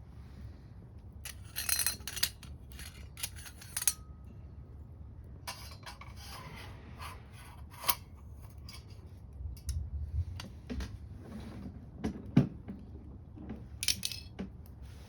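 Wood fire in a small metal camping wood stove, crackling with sharp snaps and pops, and a few stretches of hissing.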